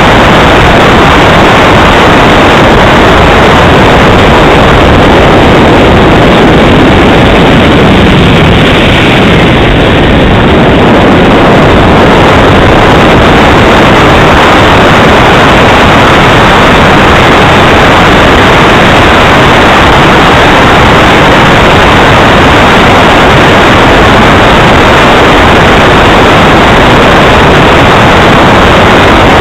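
Radio-controlled model jet engine running in flight: a loud, steady rushing noise with only a slight easing about a third of the way through.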